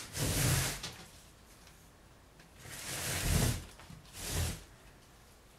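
Four short bursts of rustling noise, each under a second long, with quiet room tone between them.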